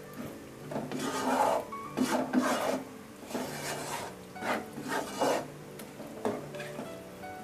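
A cooking utensil scraping and stirring through thick, reduced rendang in a pot, in about six rasping strokes along the bottom, the loudest in the first few seconds. The stirring keeps the sauce from scorching on the bottom.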